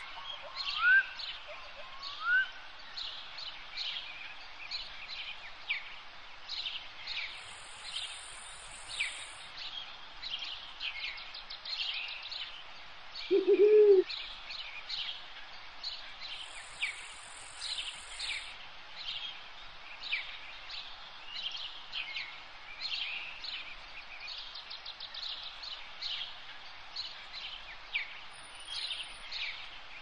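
Birds chirping: many short high chirps all through, with a few rising whistled calls in the first two seconds and one loud low call about 13 seconds in. A thin, very high buzz comes in twice.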